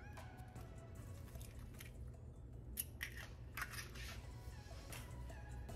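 Eggshells being cracked and pulled apart by hand over a stainless steel mixing bowl: a few soft crunches and small clicks.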